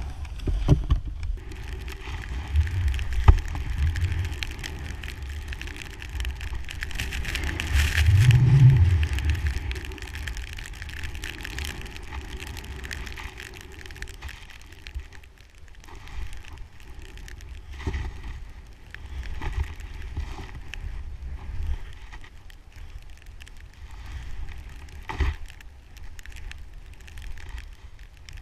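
Skis hissing through deep powder snow with wind buffeting the microphone, swelling loudest about eight seconds in, and a few sharp knocks along the way.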